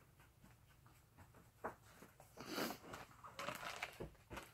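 Faint, irregular rustling and crinkling of cross-stitch fabric and its packaging being handled and folded. It starts about a second and a half in.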